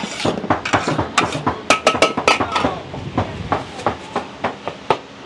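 Metal ladle and spatula clanking and scraping against a large black wok as fried spaghetti noodles are tossed and stirred. Rapid strikes come in the first three seconds, then a few scattered knocks.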